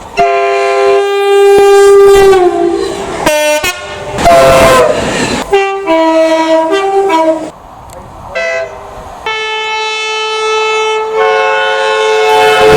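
Locomotive air horns sounding a run of long blasts, each a chord of several notes at once, cut abruptly one into the next. A couple of them drop in pitch partway through, and some are mixed with train running noise.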